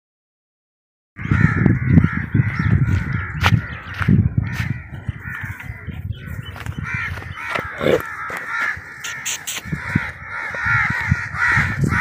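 A loud, continuous chorus of many birds calling together, starting suddenly about a second in, over irregular low thumps from running footsteps and handling of the camera.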